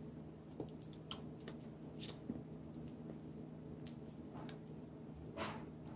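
Hands tapping and brushing against each other while signing in sign language: scattered soft clicks and taps, with a brief rustle about two seconds in and another near the end, over a steady low hum.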